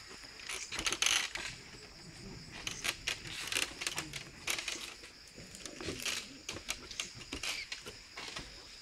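Night-time rainforest insect chorus: a steady high-pitched ringing from night insects, broken by irregular close rustles and clicks, the loudest about a second in.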